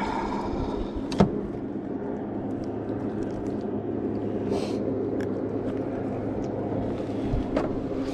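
A motor on a fishing boat humming steadily at an even pitch, with a sharp click about a second in.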